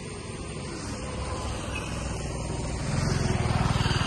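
Engine of a motor vehicle running close by, a low pulsing drone that grows louder and is loudest near the end.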